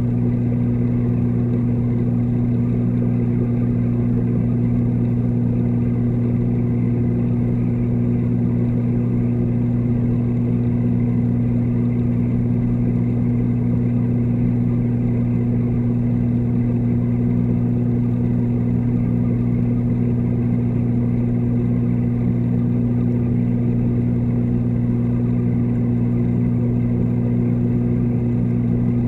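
Steady low electrical hum of reef-tank pumps, heard underwater and carried through the water, with two strong unchanging hum tones over a faint wash of water noise.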